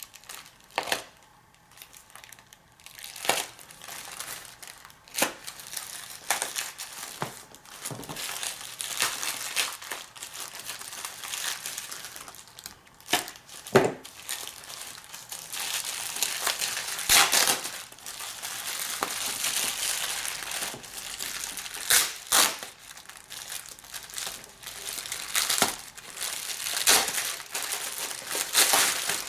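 Packaging being torn and unwrapped by hand: irregular crinkling and rustling broken by sharp crackles and snaps.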